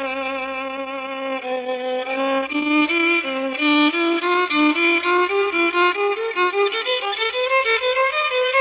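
A solo bowed string instrument playing a melody. It holds one long low note for about two seconds, then climbs in a stepwise run of shorter notes, ending about an octave higher.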